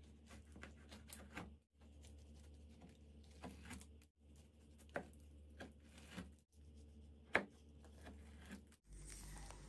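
Knife slicing through a blueberry pie's crumbly streusel topping and shortcrust base: faint, scattered crunches and crackles, with one sharp click about seven seconds in.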